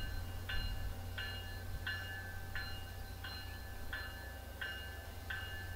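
Locomotive bell on an MBTA commuter train ringing steadily as the train approaches the station, about three strikes every two seconds, over a low rumble.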